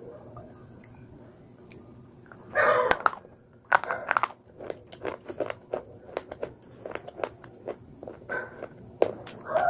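Close-miked crunching and chewing of slate pencil: sharp, dry crackles as the brittle clay breaks between the teeth. A louder burst comes about two and a half seconds in, then a run of quick crunches, with another burst near the end.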